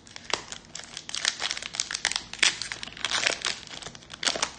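Wrapper of a trading card pack crinkling and tearing as the pack is opened, in quick, irregular crackles.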